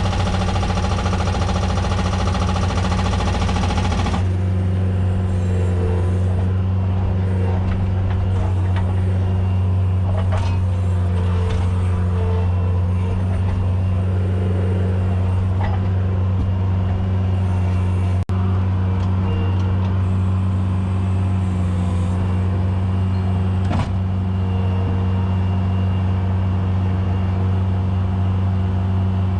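Bobcat skid steer engine running, a steady drone. It is louder and rougher for the first few seconds, then settles to an even pitch.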